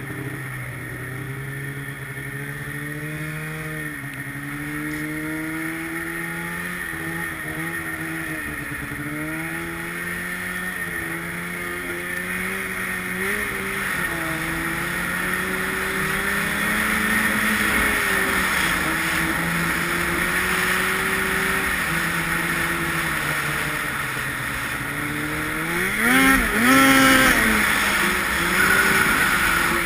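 Snowmobile engine running under way at a steady cruise, its pitch wavering a little with the throttle. About three seconds from the end it revs sharply up and back down twice, then drops off.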